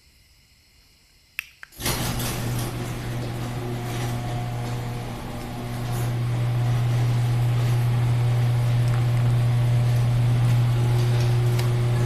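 A couple of sharp clicks, then an electric garage door opener starts about two seconds in and runs steadily with a low hum, driving the sectional door along its tracks.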